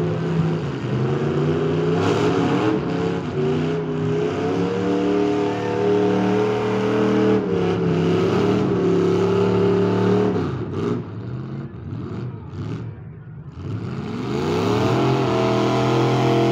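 Demolition derby car engines revving hard and unevenly, with a few sharp knocks. The revs fall away a little after halfway, then an engine winds up again and holds high near the end.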